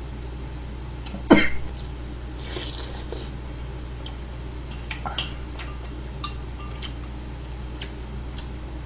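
Eating at a table: a single short loud burst about a second in, then scattered light clinks of a metal spoon against ceramic bowls as rice and stew are scooped, over a steady low hum.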